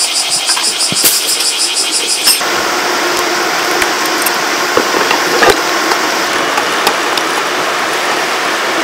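Construction machinery engine running steadily, with scattered knocks and clicks. The sound changes abruptly a little over two seconds in.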